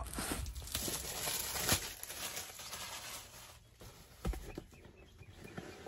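Cardboard box of a throttle controller being opened and its packaging handled: rustling over the first couple of seconds that then fades, with a sharp click, and later a single dull thump.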